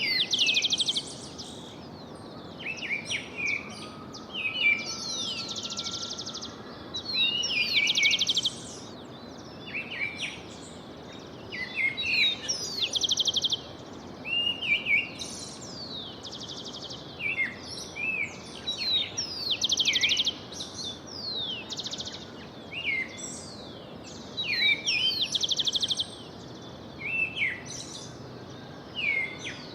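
Songbirds singing in a morning chorus: overlapping quick chirps, sweeping notes and fast buzzy trills every second or so, over a steady low background hiss.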